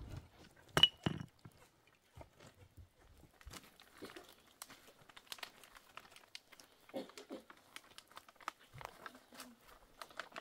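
Plastic tarp sheeting crinkling in irregular crackles as it is pulled and tucked by hand, with one loud sharp snap about a second in.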